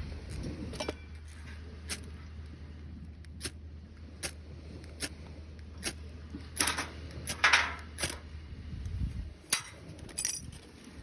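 Scattered sharp clinks and knocks of hard objects being handled, with a louder run of them a little past the middle. A steady low hum underneath stops about nine seconds in.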